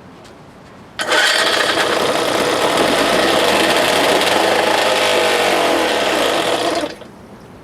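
1970 Johnson 4 hp two-stroke twin outboard motor firing up and running on gas primed into the head, starting suddenly about a second in and cutting off abruptly after about six seconds.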